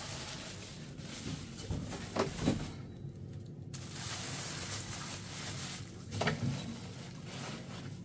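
Plastic bags rustling as bagged fish are handled and packed into a freezer, with a few knocks about two seconds in and again near six seconds.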